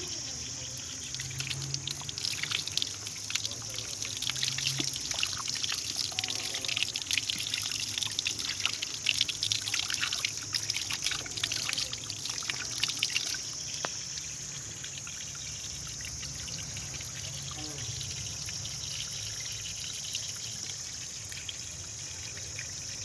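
Fresh mountain water pouring and trickling, with lively splashing for the first half that settles into a softer, steadier flow about two-thirds of the way through.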